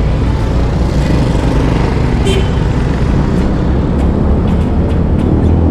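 Motorcycle riding in city traffic: a steady, loud wind rumble on the rider's camera microphone over the running engine and the traffic around. A short higher-pitched sound stands out about two seconds in.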